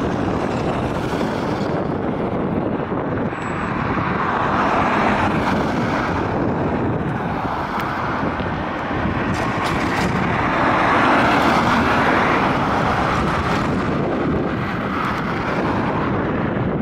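Trolleybus driving past with road traffic: a steady rush of tyre and running noise that swells twice, about four seconds in and again about ten seconds in, over a low rumble.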